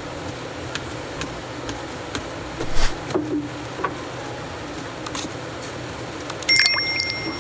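Paint cans and cardboard cartons being handled: scattered knocks and rustles, a louder bump about three seconds in, and near the end a metallic clank that rings on briefly. A steady machinery hum runs underneath.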